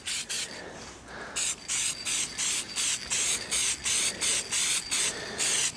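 Aerosol spray can of Dupli-Color Trim and Bumper paint hissing. After a short pause in the first second or so, it sprays in quick, evenly spaced short bursts, about three a second.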